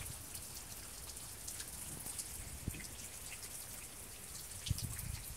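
Steady rain falling, with individual drops pattering and ticking close by. A couple of low thumps sound near the end.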